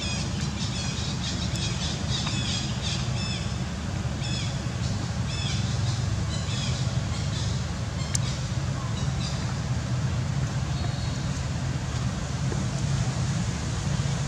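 Short, high squeaky animal chirps, several a second through the first half and only a few after that, over a steady low rumble.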